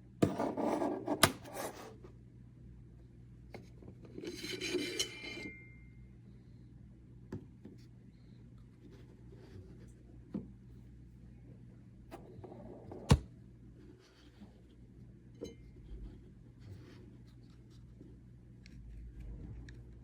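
Handling noises of small objects: bouts of rubbing and scraping with scattered light clicks, the loudest two being sharp clicks about a second in and about thirteen seconds in. A faint steady low hum runs underneath.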